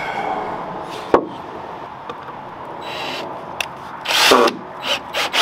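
Cordless drill-driver running a screw into a timber block in short bursts, the loudest about four seconds in, with a sharp knock about a second in.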